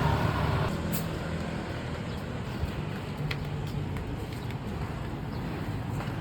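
Street traffic noise with a steady low engine hum and a few faint clicks.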